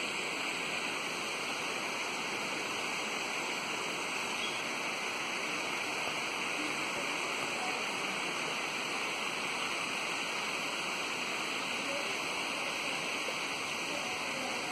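Steady, unbroken hiss that holds the same level throughout, strongest in the upper-middle range.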